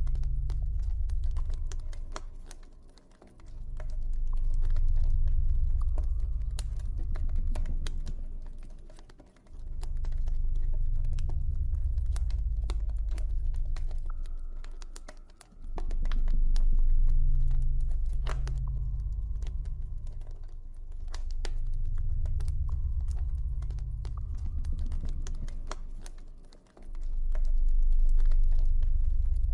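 Campfire crackling with scattered sharp pops, over a deep ambient drone that swells and fades roughly every six seconds.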